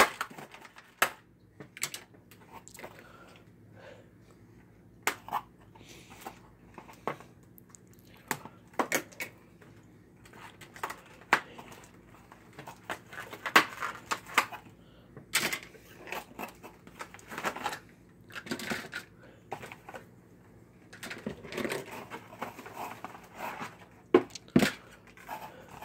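Hard plastic board-game pieces clicking and knocking as they are lifted out of a cardboard box, with some rustling and crinkling of wrapping, in scattered irregular clicks.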